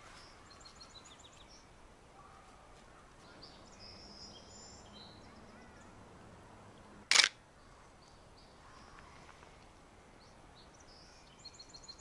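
Faint chirps and trills of small birds, with one sharp camera-shutter click about seven seconds in, the loudest sound.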